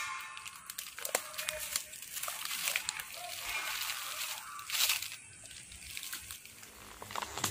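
Plastic rubbish bags and dry leaves crinkling and rustling with short sharp scrapes and knocks as a scrap motorcycle is dragged about in the heap.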